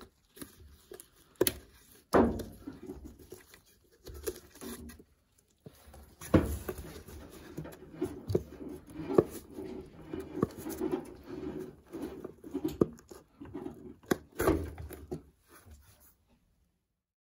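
Irregular knocks, rubbing and scuffing as a washing machine's rubber dispenser hose is worked off its plastic outlet by gloved hands.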